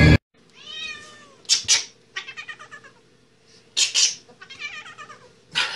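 A cat meowing and yowling several times in a row. Its wavering cries alternate with short, harsh noisy bursts.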